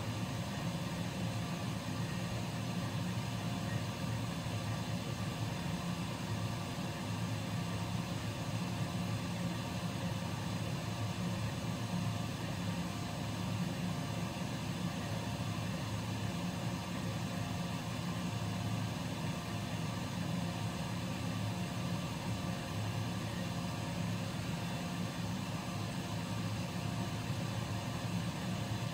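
Air compressor running steadily, a constant low hum.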